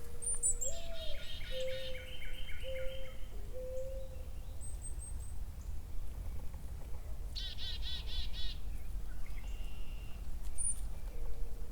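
Birds singing: two bursts of quick, repeated high phrases and a few thin chirps, with a lower call of held, steady-pitched notes in the first few seconds and again near the end, over a low background rumble.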